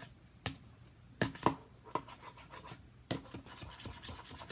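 A few short scrapes and knocks of a utensil against a bowl while slime of detergent and shaving gel is being mixed, the sharpest about a second and a half in.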